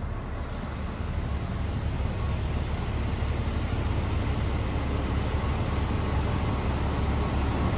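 Scania R420 truck's diesel engine idling, heard from inside the cab: a steady low rumble that grows slightly louder about a second in.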